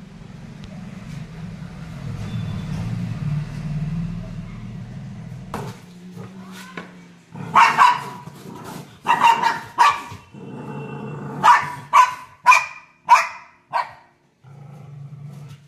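A dog barking at a cornered kitten: about eight short, sharp barks in the second half, with a low, steady growl in the first five seconds and again near the end.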